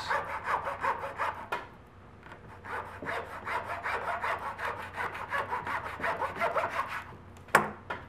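Fine-toothed hand saw cutting through a small glued-up log of thin hardwood strips, slicing a tile off its end for a guitar rosette: quick short rasping strokes, with a brief pause about a second and a half in. A single sharp click near the end.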